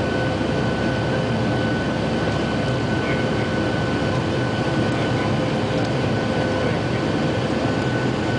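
Jet airliner's wing-mounted engines at climb power as heard inside the cabin: a steady, loud rush of engine and airflow noise with a constant high whine running through it.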